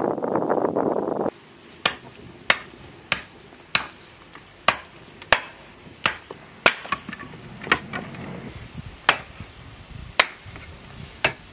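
Wind buffeting the microphone for about the first second, then a run of sharp wooden chops, about one to two a second, as a hand blade hacks pieces off a stick of wood.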